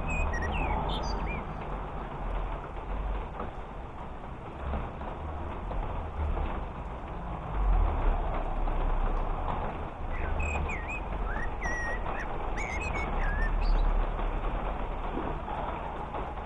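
Small birds chirping: a few calls near the start and a run of short chirps about two-thirds of the way through, over a steady hiss of rain and a low rumble.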